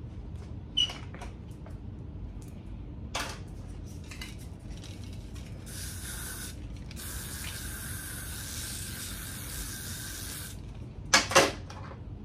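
Aerosol hairspray sprayed in two hissing bursts, a short one and then a longer one of about three and a half seconds. A few sharp handling clicks come before and after, the loudest two close together near the end.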